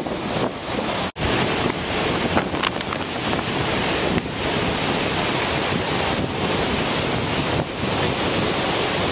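Steady rushing roar of Upper Yosemite Fall plunging over the rim, mixed with wind buffeting the microphone. The sound cuts out for an instant about a second in.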